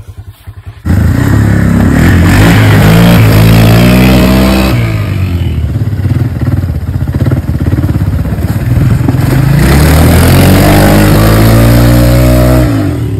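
A small ATV engine running close by and loud, coming in suddenly about a second in. It revs up and down in two surges and eases off near the end.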